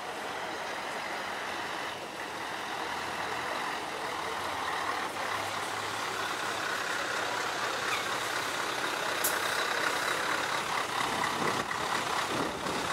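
Scania T-series V8 diesel truck engine running as the tractor unit rolls slowly up, growing steadily louder as it nears.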